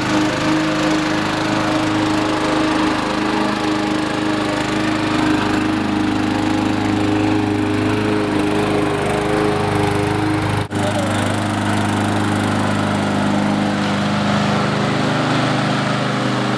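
Victa petrol rotary lawn mower engine running steadily while mowing grass, with a momentary break about two-thirds of the way through.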